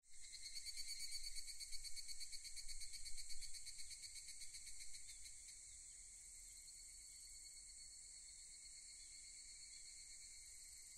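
Crickets chirping in a fast, pulsing, high-pitched trill. It is faint, a little louder for the first five seconds, then settles into a softer steady trill.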